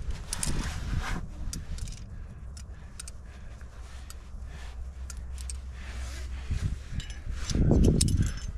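Climbing gear clinking and jangling, scattered sharp metallic ticks, over a steady low rumble, with a louder rush of noise about three-quarters of the way through.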